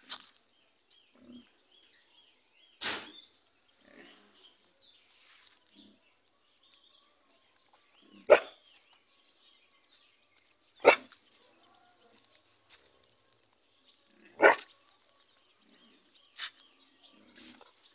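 Dog giving about five short, sharp barks spaced a few seconds apart, the three in the middle loudest.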